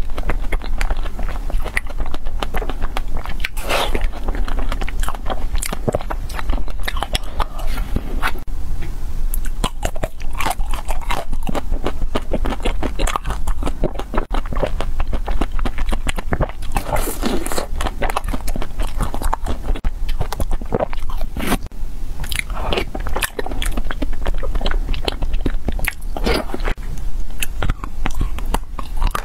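Close-miked biting and chewing of frozen ice cream bars: many crisp, crunching bites in quick succession, mixed with chewing.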